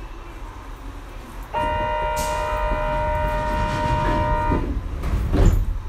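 A steady electronic warning tone, typical of a subway door-closing buzzer, starts suddenly, holds for about three seconds and cuts off, marking the end of the station stop. About a second later comes a short loud thud, the doors shutting.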